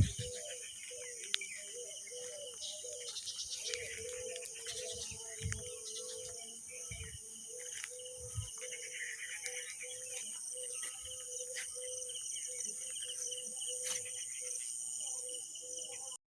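Insects chirring steadily in a high continuous drone, with birds calling repeatedly over it. There are a few low thumps in the first half.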